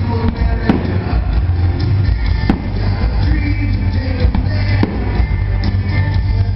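Loud music with a heavy bass, with several sharp firework bangs cracking through it.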